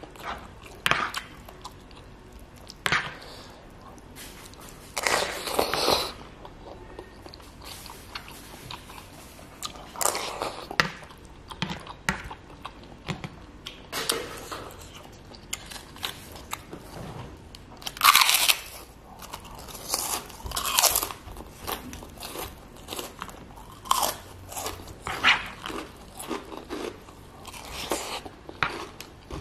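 Close-miked mouth sounds of a person eating soupy instant noodles and fish balls with a spoon: irregular bites, chewing and crunching, with a few louder spells every few seconds.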